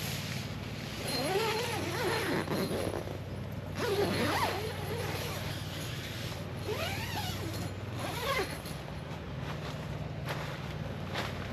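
Portable air conditioner running with a steady low hum, its cooling part not yet kicked in. Over it come several bursts of squeaky creaking.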